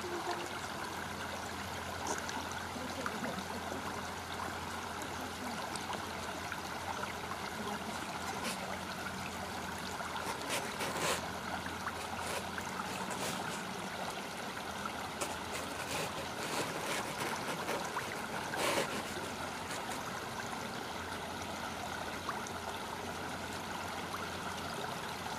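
Shallow river water running steadily, with a few short clicks around the middle.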